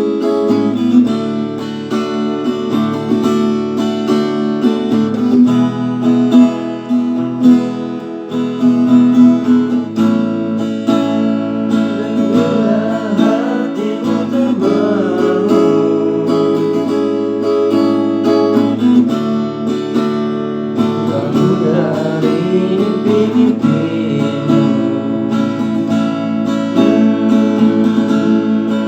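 Acoustic guitar being strummed in steady chords, with a wavering melody line rising over it twice in the middle.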